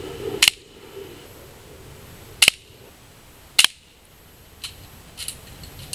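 Crosman Marksman spring-air BB pistol firing three shots, each a sharp snap, the second about two seconds after the first and the third about a second later. A few fainter clicks follow near the end.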